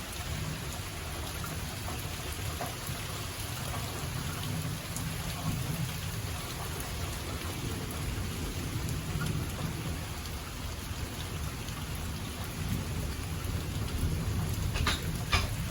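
Heavy rain falling steadily during a thunderstorm, with a low rumble underneath throughout. Two sharp clicks near the end.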